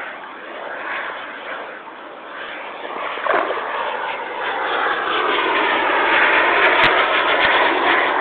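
A model airplane's motor whines overhead, growing louder over the second half as it flies past. Rubber hip boots slosh through puddle water underneath, and there is a single sharp click about seven seconds in.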